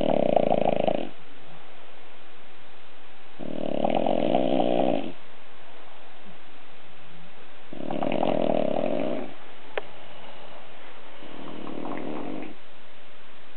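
Sleeping dogs snoring, one slow snore about every four seconds, four in all, the last one softer. A short sharp click comes about ten seconds in.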